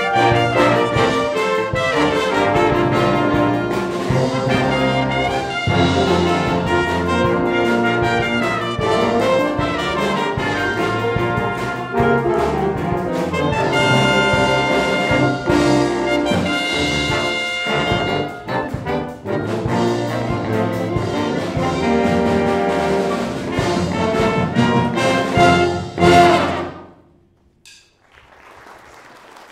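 School wind band, led by brass over woodwinds and percussion, playing the closing bars of a piece and ending on a final chord cut off sharply about 27 seconds in. A moment of silence follows, then faint applause begins.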